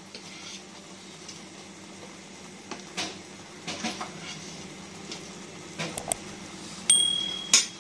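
A few soft knocks of a slotted spoon against a pressure cooker pot as boiled eggs are set onto the rice. Near the end comes a quick pair of clicks, then a short, high electronic ding, the loudest sound, cut off by a sharp click.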